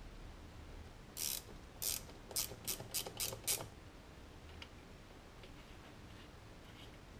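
A ratchet wrench clicking through about seven quick back-strokes that come closer together, from a little over a second in until about three and a half seconds in, followed by a few faint ticks.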